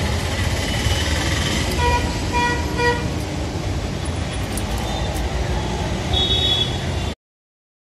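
Street traffic running steadily, with a vehicle horn tooting three short times about two seconds in and a higher-pitched short honk near the end. The sound cuts off abruptly about seven seconds in.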